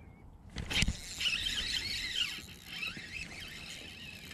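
A sharp knock about half a second in, then a fishing reel's drag squealing in wavering pitch for about two seconds as a hooked fish pulls line, fading out before the end.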